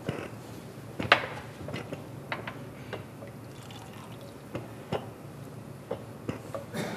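Spoon stirring a pot of yogurt sauce, with scattered clinks and knocks of metal utensils against the pots. The sharpest knock comes about a second in.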